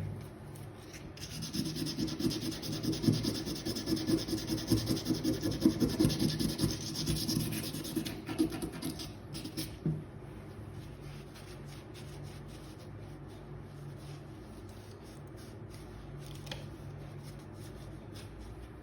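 Sandpaper rubbed by hand back and forth over the rusty metal tips of a hand tool, sanding them smooth and shiny. The strokes run fast and rhythmic for several seconds, then ease off about halfway through into quieter scratching and a few light clicks.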